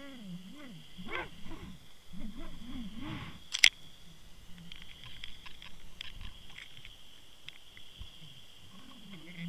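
Muffled underwater sound from a camera housing moving through the water: a low, wavering drone with scattered clicks and a steady high hiss, and one sharp knock about three and a half seconds in.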